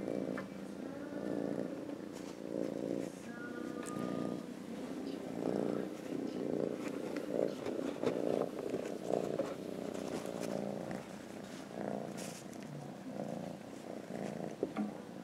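Kitten purring close up, the low rumble swelling and fading about once a second with each breath in and out.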